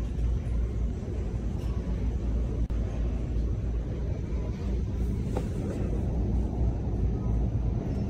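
Steady low rumble and hiss of background noise in a large store, with no distinct events.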